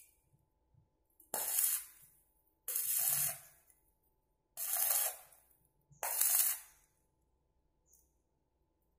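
Arc welding on a steel bicycle-frame joint: four short bursts of sharp hiss, each under a second long and a second or so apart, as the arc is struck and broken.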